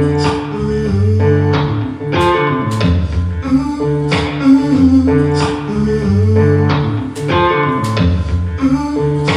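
Instrumental guitar music: strummed chords in a steady rhythm over low, sustained bass notes.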